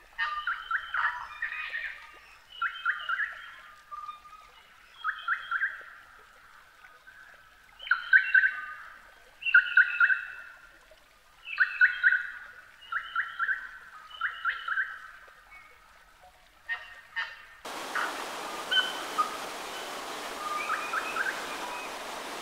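A forest songbird singing short phrases of a few quick notes, repeated every second or two with short pauses. About three-quarters of the way in, the steady rush of a waterfall cuts in suddenly, with faint birdsong still heard over it.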